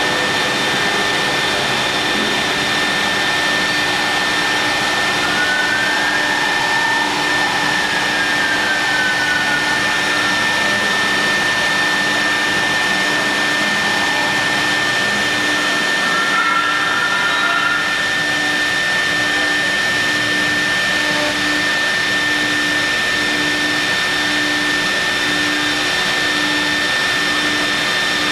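CNC milling machine with a vacuum table machining marble: a steady, loud rushing machine noise with a constant high whine, and a low hum that begins to pulse about once a second in the second half.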